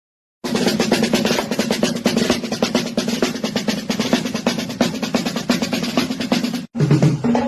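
Drums played in a fast, dense roll that starts about half a second in. It over a steady low ringing tone, stops abruptly near the end, and gives way to a sparser beat.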